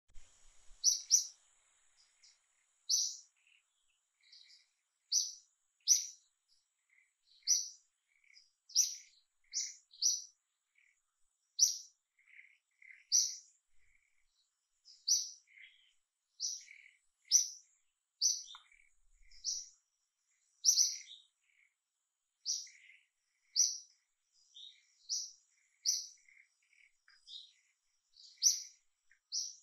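A bird calling over and over: short, high chirps about once every second or so, some in quick pairs, with softer, lower notes in between.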